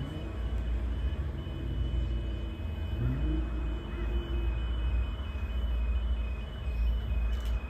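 A steady low rumble with a high electronic beep repeating about twice a second, and a brief rising tone about three seconds in.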